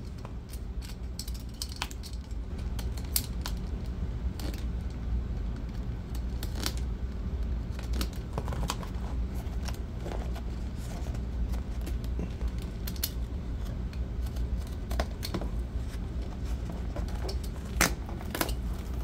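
Tape being cut and peeled off a battery pack's wrapping: irregular clicks, crackles and short tearing sounds, over a steady low hum.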